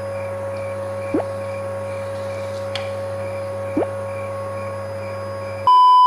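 Cordless stick vacuum cleaner running with a steady whine and low hum, with two brief rising swoops, one about a second in and one near four seconds. Near the end a loud steady beep cuts in, the test tone of TV colour bars.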